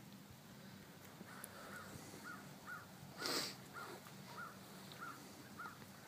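A bird calling in a steady series of short, faint calls, about two a second, starting about a second in. A brief, louder noisy sound comes about halfway through.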